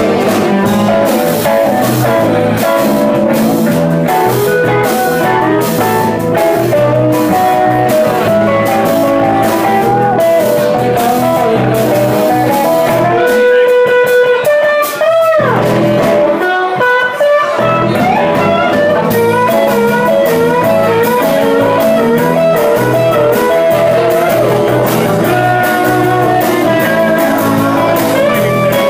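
Live blues band playing an instrumental passage: electric guitar to the fore over bass, drums and keyboard, with a brief break in the backing about halfway through.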